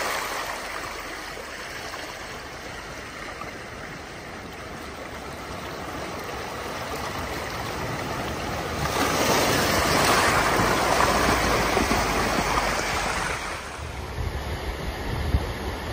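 Fast, shallow river rushing over stones, with a Suzuki Jimny fording it: the water noise swells for several seconds from about nine seconds in as the vehicle pushes through the current toward the camera. Near the end it gives way to a quieter, lower rumble.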